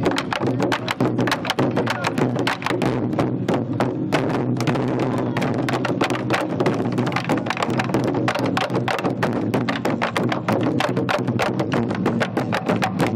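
An ensemble of Korean barrel drums (buk), with a large drum among them, beaten with sticks in a fast, driving rhythm of many strokes a second.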